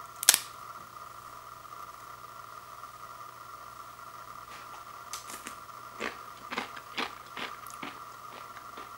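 A Pringles potato crisp snapping between the fingers with one sharp crack just after the start. From about four and a half seconds in come a run of smaller crackles and snaps as the pieces are broken up further.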